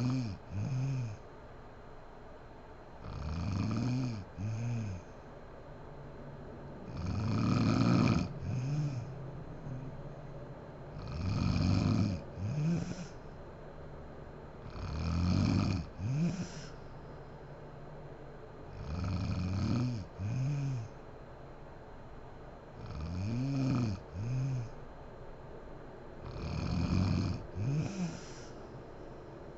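A sleeping woman snoring in a slow, regular rhythm: about eight snores, one roughly every four seconds, each a long snore followed closely by a shorter second one.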